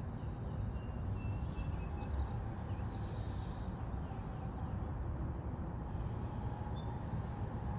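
Outdoor ambience: a steady low rumble with a few faint high chirps of insects or birds.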